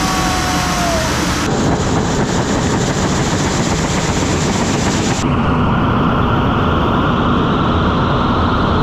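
Giant homemade blender running with about 10,000 golf balls inside: a loud, dense, steady noise of the balls churning against the blades and drum. The high, hissy part of the sound cuts away abruptly twice, about a second and a half in and again about five seconds in.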